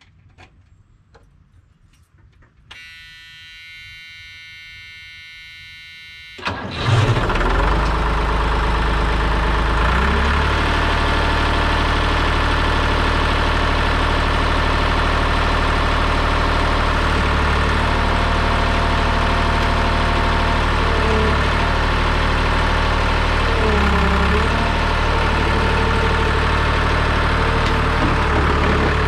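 Cold start of a New Holland L781 skid steer's Deutz F3L912 three-cylinder air-cooled diesel: a steady high electronic tone sounds for a few seconds, then the engine is cranked and catches quickly about seven seconds in. It then runs at a steady idle.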